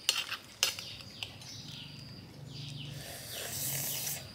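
Sharp clicks and cracks of cooked crayfish shells being broken and peeled by hand while eating, followed near the end by a soft hissing suck. Birds chirp in the background.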